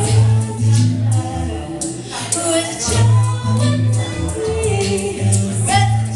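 Live band performing a song: a singing voice over sustained bass notes and a percussive beat.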